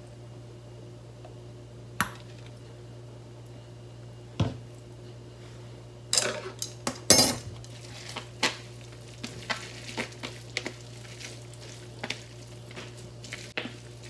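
Wooden chopsticks tossing oiled soba noodles in a plastic colander: two single clicks in the first half, then from about six seconds in a run of irregular taps, clacks and soft scrapes as the noodles are stirred and lifted.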